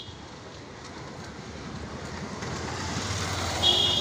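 Freight train of tank wagons rumbling steadily over a bridge, with a motorcycle growing louder as it comes through the underpass below. A vehicle horn honks near the end.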